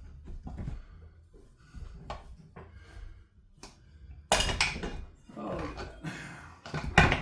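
Metal clanks and clattering of chainsaw crankcase parts and tools being handled during the case split: a few light clicks, then a loud burst of clatter a little past halfway and another near the end.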